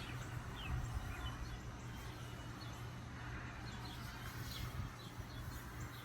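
Quiet outdoor background with scattered short, high bird chirps and a faint steady low hum.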